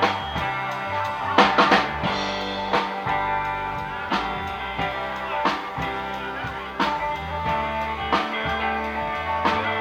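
Live band playing an instrumental passage: electric guitar notes over a drum kit, with a cluster of quick drum hits in the first two seconds and then a hit about every second and a half.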